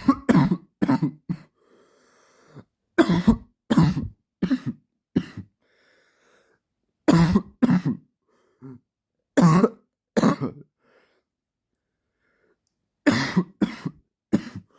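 A man's persistent dry cough, coming in fits of two to five coughs every few seconds, with faint breaths in the pauses between fits.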